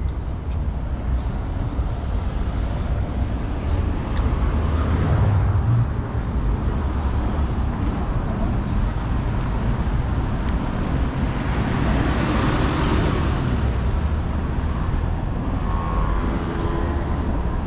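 City road traffic: a steady rumble of passing cars, with one vehicle passing louder about twelve seconds in.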